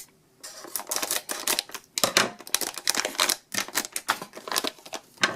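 Cable packaging being handled and pulled open: a rapid, irregular run of clicks, rustles and crinkles, starting about half a second in with a short pause partway through.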